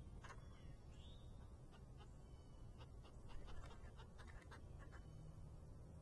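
Faint clicking and scratching of red-headed woodpeckers pecking and shuffling in the seed of a feeder dish, with a run of quick taps in the middle. Faint bird chirps can be heard behind, over a low outdoor rumble.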